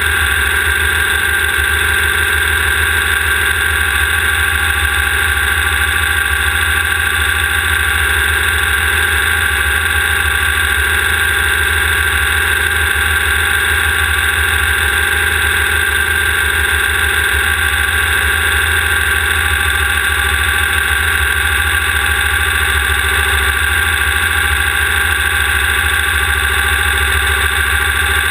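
A race vehicle's engine running loud and steady at one unchanging pitch, with a low rumble from the running gear, heard through a camera mounted on the vehicle.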